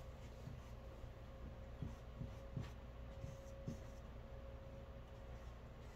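Faint scratching of paintbrushes stroking acrylic paint onto canvas, with a few soft taps in the first few seconds, over a steady low room hum.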